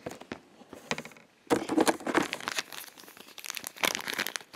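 Clear plastic zip bag crinkling and rustling as it is handled, in irregular bursts, sparse at first and then busier and louder after about a second and a half.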